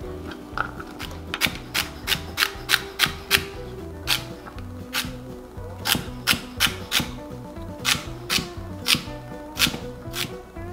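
Chef's knife rough-chopping carrot and celery on a wooden cutting board: runs of sharp knocks as the blade strikes the board, about three a second.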